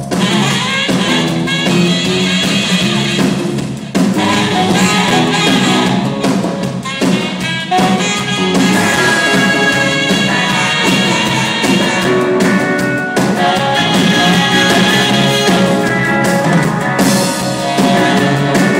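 Live band playing rock music with guitars, bass and drums.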